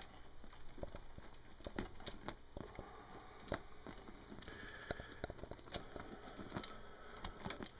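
Faint, scattered light clicks and rustles of small flat chain links on an RC truck tire being handled and shifted.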